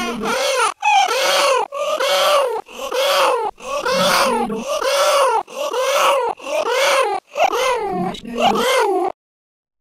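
Repeated wailing cries, about a dozen short ones in a row, each rising and then falling in pitch; they cut off abruptly about nine seconds in.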